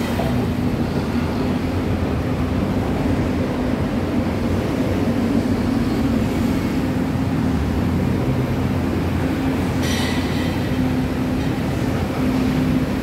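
Escalator running: a steady mechanical drone with a held low hum and rumble, and one brief sharper sound about ten seconds in.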